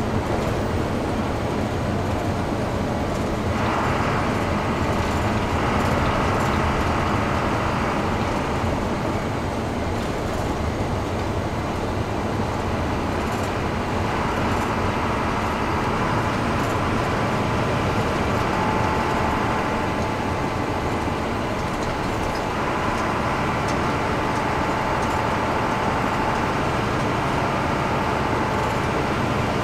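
Hino AK front-engined diesel bus driving on the road, a steady mix of engine and road noise with a faint whine that shifts in pitch a few times.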